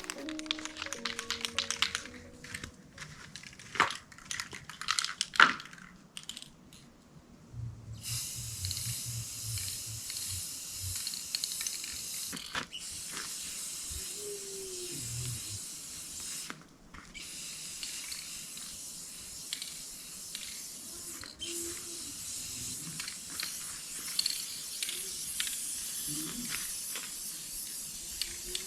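Paint spray hissing in long bursts broken by a few short pauses, after several seconds of scattered clicks and knocks.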